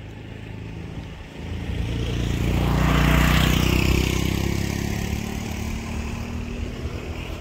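A motor vehicle passing close by: engine rumble and road noise swell to a peak about three seconds in, then fade away slowly.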